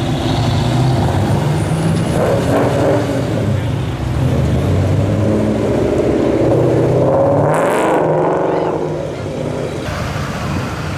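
Cars driving past one after another, engines running. About six seconds in, a Ford Mustang GT's 5.0 V8 revs up with a rising note as it passes.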